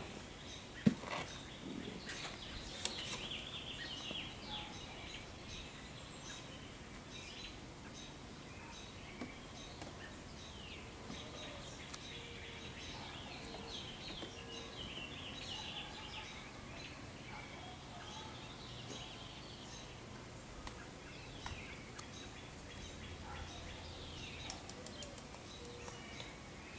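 Birds chirping and singing in the background, many short calls and falling notes throughout, with two sharp clicks in the first few seconds.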